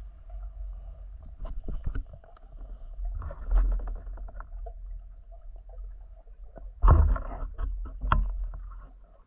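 Muffled splashing and knocking of movement in water over a low rumble, with scattered clicks and louder surges about three and a half and seven seconds in, the second the loudest.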